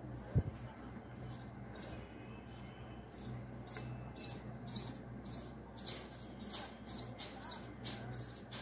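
A small bird chirping over and over, short high chirps two or three times a second that begin about a second in, over a low steady hum. A single sharp knock just under half a second in is the loudest sound.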